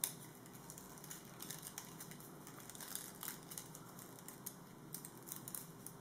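Faint crinkling and rustling of a fringed paper strip being wound tightly around a paper straw by hand. It opens with one brief sharp click, then small irregular crackles.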